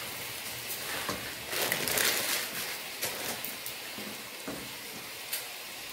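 Dry vermicelli sizzling as it goes into hot oil with fried onions, a steady crackling hiss, with a wooden spoon stirring it through. The crackle grows louder for a moment about a second and a half in, with a few sharp clicks.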